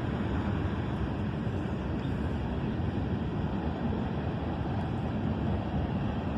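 Freight train cars rolling past at track speed: a steady rumble of steel wheels on the rails.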